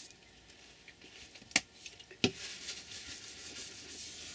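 Hands rubbing and smoothing glued paper flat, a dry papery swishing, broken near the middle by two sharp taps a little over half a second apart.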